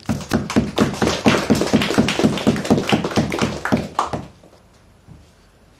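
Hands striking in a quick, even rhythm, about five or six strokes a second, as a small audience claps or beats on the tables. It stops abruptly about four seconds in.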